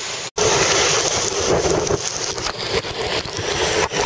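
Strong wind buffeting the microphone on a sailing yacht's deck, with the rush of wind and sea. It cuts out for a moment about a third of a second in, then comes back loud.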